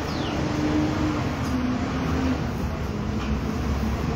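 Steady rushing rumble of a coal forge with its air blast running while iron heats in the fire.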